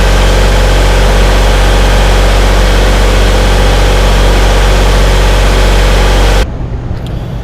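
Carbon arc gouging on a steel dozer frame: a loud, steady hissing roar of the arc and compressed air blowing out molten metal, over a low machine hum. It cuts off abruptly about six seconds in, leaving only the quieter low hum.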